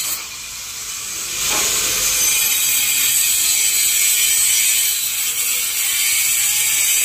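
Handheld electric angle grinder running at speed, its disc cutting a groove into a concrete floor. It eases off briefly about a second in, then runs steadily.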